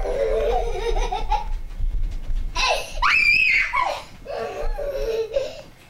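A small child laughing in long high-pitched runs, with a shrill squeal about three seconds in.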